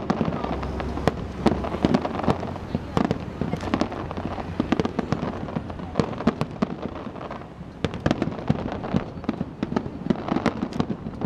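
Aerial fireworks bursting: an irregular string of sharp bangs and crackles, several a second at times.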